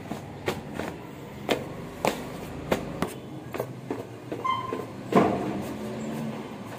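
Footsteps of hard-soled shoes on tiled stairs, about two steps a second. A brief high squeak comes about four and a half seconds in, and the loudest thump, with a short ring after it, just after five seconds.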